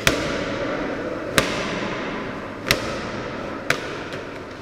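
Medicine ball slammed onto a rubber gym floor four times in a row, roughly a second and a quarter apart, each a sharp smack as it hits and rebounds to be caught.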